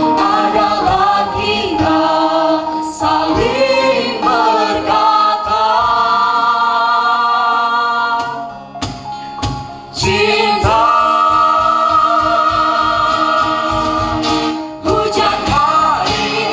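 A small vocal group singing in harmony on long held notes. The singing drops away briefly about eight seconds in, then comes back on a long held chord.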